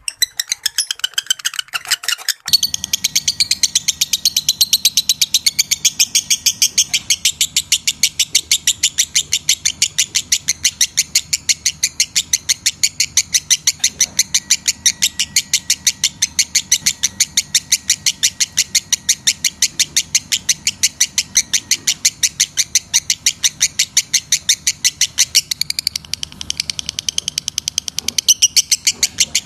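Lovebird in breeding condition giving a long, rapid, evenly paced series of shrill chirping notes, after a few scattered calls at the start.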